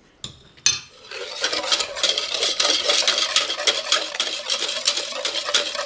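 Wire whisk beating thin batter in a stainless steel pot: fast, continuous clinking and scraping of the wires against the pot, with the liquid sloshing. It starts about a second in, after a couple of light taps.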